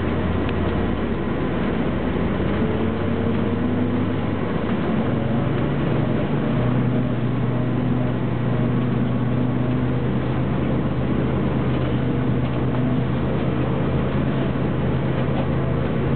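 City bus engine and drivetrain running, heard from inside the bus while it drives, with a steady low hum. About five seconds in, the engine note steps up in pitch and holds there.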